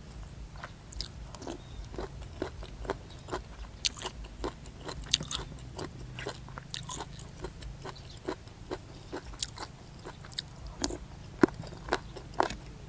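Close-up chewing of hed thob mushrooms (Astraeus, the leathery-skinned puffball-like earthstar) from a curry, their tough skins crunching in irregular small clicks, a few a second.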